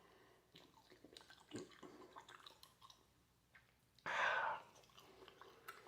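Faint wet chewing and mouth clicks of a man eating raw T-bone steak, with one short, louder rush of noise about four seconds in.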